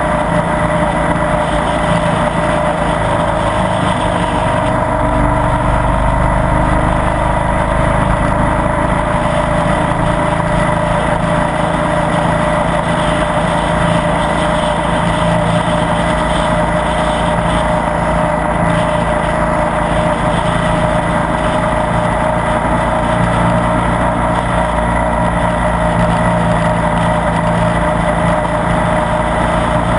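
Ducati Multistrada 1200 S Sport's V-twin engine running steadily at cruising speed, mixed with road and wind noise.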